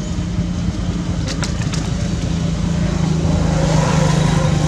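A steady engine hum that grows louder toward the end, with a few sharp clicks about a second and a half in.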